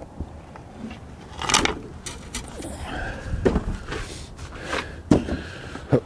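Footsteps on slushy snow and the rear fender deck with its seat, just lifted off a John Deere GX345 lawn tractor, being carried and set down on the ground: a few irregular scuffs and knocks.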